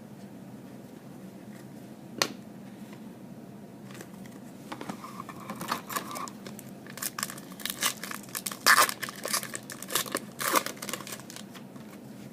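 Foil trading-card pack wrapper crinkling and being torn open in a run of crackly rustles from about five seconds in, loudest near the middle. A single sharp tap comes about two seconds in.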